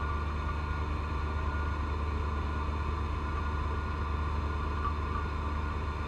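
John Deere 1025R compact tractor's three-cylinder diesel running steadily under load, driving a front-mounted 54-inch snow blower that is throwing heavy wet snow. A low, even engine drone carries a steady higher whine over it.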